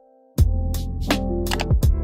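Music: after a brief gap, a track starts about half a second in with a fast drum beat over a steady bass line and held synth notes.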